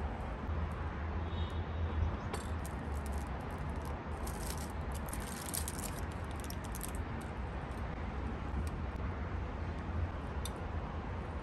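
Outdoor city ambience, a steady low rumble. Over it come crisp crinkles, a cluster around the middle and one more near the end, from aluminium foil wrapped around a toast sandwich as it is handled.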